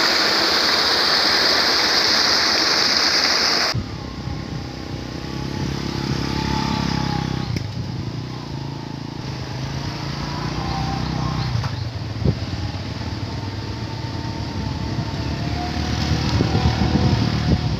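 Water rushing steadily down a small stone cascade, cut off abruptly about four seconds in. Then several motorcycle engines running as the bikes ride closer, getting louder near the end.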